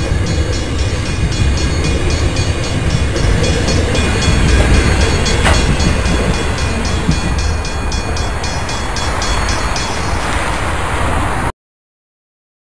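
Loaded grain hopper wagons rolling past, a loud rumble of wheels on rail with a sharp clank about five and a half seconds in, while the level-crossing bell dings rapidly and regularly. The sound cuts off abruptly near the end.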